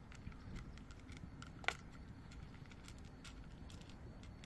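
Cats crunching dry kibble: scattered small crackling clicks, with one sharper click about a second and a half in, over a steady low background rumble.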